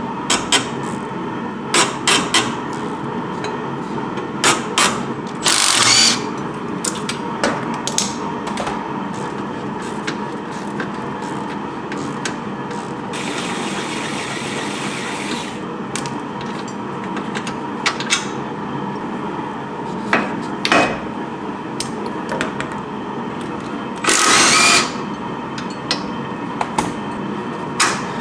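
Hand tools on metal clicking and knocking at intervals while rusted rear suspension parts are taken apart, with two short hissing bursts, one about five seconds in and one near the end.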